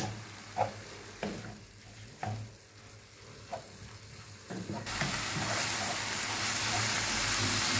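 Wooden spatula stirring and scraping minced turkey kefta in a nonstick frying pan, with a few separate scrapes in the first part. About five seconds in, a steady sizzling hiss comes in and holds.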